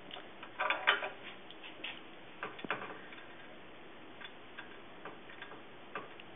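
Triple beam balance riders being slid along the notched metal beams and clicking into place while an object is weighed: a quick cluster of clicks about a second in, then scattered single ticks.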